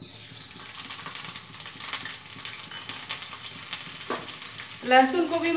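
Chopped garlic sizzling and crackling in hot oil in a kadhai. The sizzle starts suddenly as the garlic hits the oil and goes on steadily with small spatter pops.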